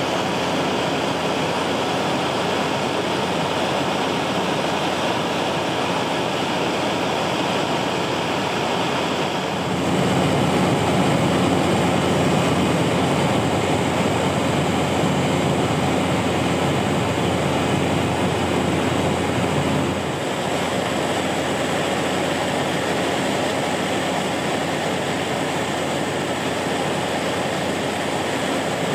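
Floatplane's propeller engine and airflow heard from inside the cabin in cruising flight: a steady, loud drone that is a little louder for about ten seconds in the middle.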